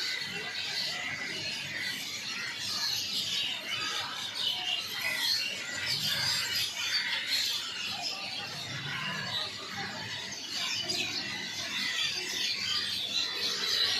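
A flock of small birds chirping and chattering all at once: a dense, continuous mass of many short overlapping high chirps, with no pauses.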